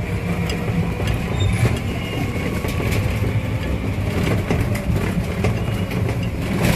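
Auto-rickshaw engine running as it drives, heard from the rear passenger seat: a steady, pulsing low hum with scattered short knocks and rattles.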